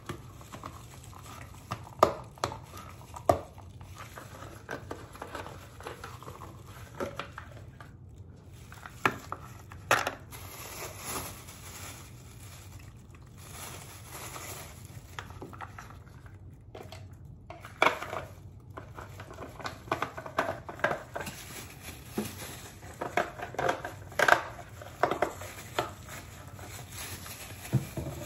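Crinkling of thin disposable plastic gloves with irregular clicks and knocks as a plastic hydrogen peroxide bottle and a plastic mixing bowl are handled.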